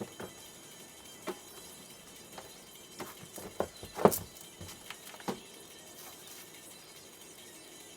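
Scattered clicks and knocks, about a dozen, bunched together in the middle, the loudest a sharp knock about four seconds in, over a faint steady hiss.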